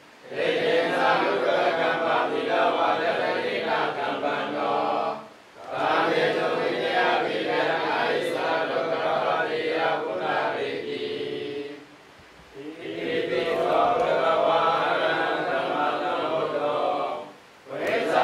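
Group of Buddhist monks chanting together in unison, in long phrases broken by short pauses for breath about 5 s, 12 s and near the end.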